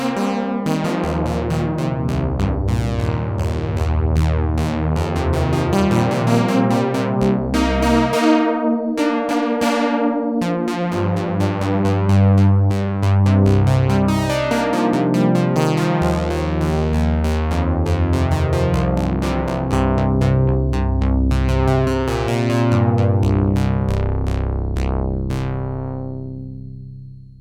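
Sequential Prophet-6 analogue polyphonic synthesizer playing a factory preset: chords over changing bass notes. The last chord dies away near the end.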